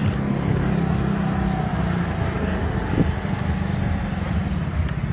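Street noise with a motor vehicle engine running steadily, a low even hum, and a single short knock about three seconds in.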